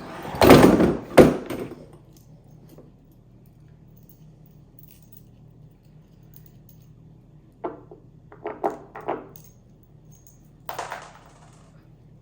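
Metal bolts and cart hardware clinking and clattering as they are handled during assembly: a loud clatter in the first second and a half, then a quick run of short clinks later on and one more near the end.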